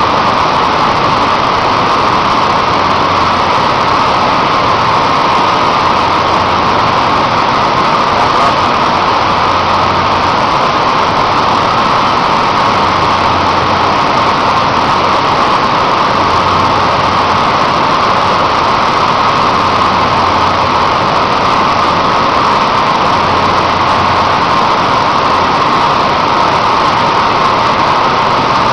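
Steady, loud machinery noise of a steel melting shop during tapping of molten steel from an LD converter, with a strong steady band of sound around the middle of the range and no breaks.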